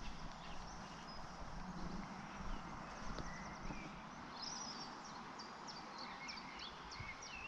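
Small birds chirping, with several quick trills, over a faint steady outdoor background hiss.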